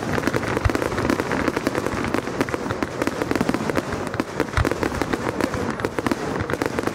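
Fireworks display going off: a dense, rapid crackle of many small reports with a few deeper bangs among them.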